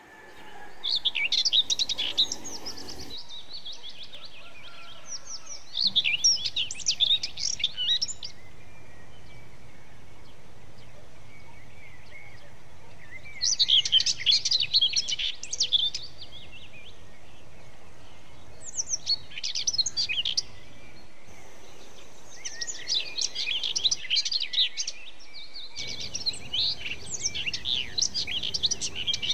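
Small birds chirping and twittering in bursts of a few seconds at a time, several times over, above a steady background hiss.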